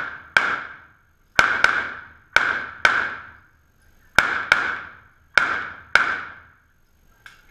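Pistol shots echoing in an indoor shooting range: about nine shots, most fired as quick pairs with a pause between each pair.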